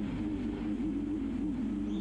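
Quadcopter drone motors and propellers whining, their pitch wavering up and down as the drone fights gusty wind.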